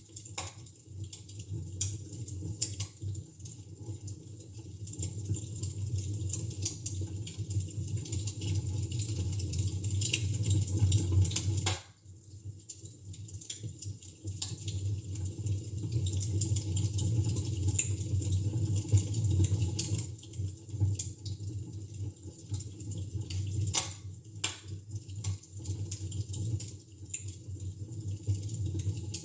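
Wood fire in a fireplace crackling, with sharp pops at irregular intervals over a steady low rumble. There is a brief dropout about twelve seconds in.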